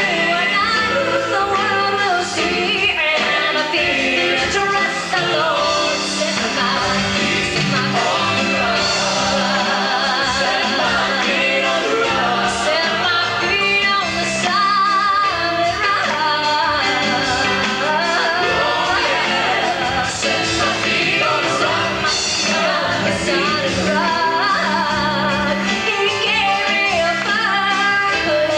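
A vocal group singing a Christian gospel song in harmony, the voices with vibrato, over instrumental accompaniment.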